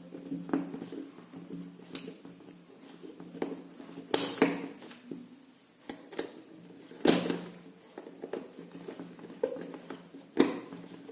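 Scattered clicks and knocks of small hard parts being handled as a 3 mm bolt is tightened to fix a gear motor to an acrylic chassis plate. The three loudest knocks come about 4, 7 and 10 seconds in, over a faint steady hum.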